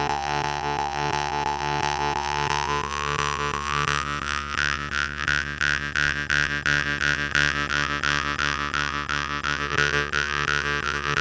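Jaw harp (vargan) playing a steady drone on one low note; its bright overtone slides upward about three seconds in, and the rest is played in fast, regular rhythmic pulses.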